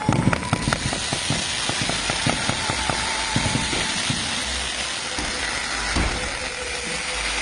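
Fireworks going off: a rapid string of sharp pops in the first three seconds, with scattered bangs after, over a steady hissing crackle.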